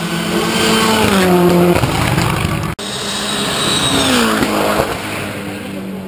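Hill-climb race car engines at full throttle climbing past, loud and high-revving. The engine note drops sharply about a second in. The sound cuts off abruptly just under three seconds in, and another pass follows with the engine note falling again near the end.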